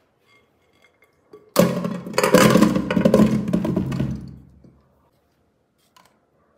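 Small whole potatoes pouring from a glass bowl into the metal inner pot of an electric pressure cooker: a loud rush of knocks and thuds starts about a second and a half in, lasts about three seconds and tails off.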